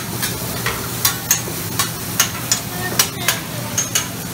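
Metal spatulas clacking and scraping on a Mongolian barbecue flat-top griddle, about two clacks a second, over the steady sizzle of meat and noodles frying.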